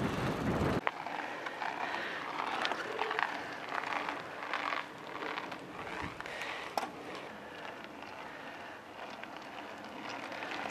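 Wind buffets the microphone and cuts off abruptly about a second in. After that, mountain bikes ride past on a climb, with tyre noise and scattered clicks and rattles from the bikes.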